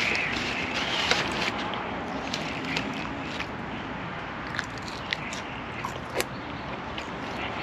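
A person eating by hand close to the microphone, biting and chewing jerk chicken wings and fries, with scattered short sharp clicks over a steady background hiss.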